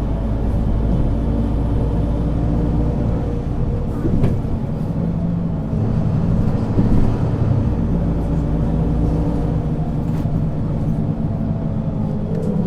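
Mercedes-Benz Citaro C2 city bus engine running at a fairly steady pitch, with a short knock about four seconds in.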